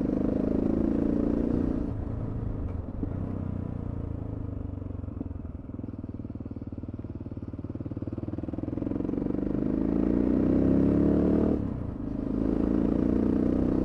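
Adventure motorcycle engine heard from the rider's position while riding: the revs ease off about two seconds in, then climb steadily, drop sharply for a moment near the end and climb again.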